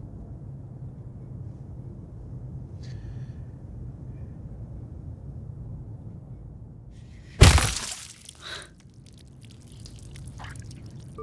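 Low steady hum, then about seven seconds in a sudden loud wet splatter with a smaller splat a second after it: the gory sound of a body being destroyed in a killing.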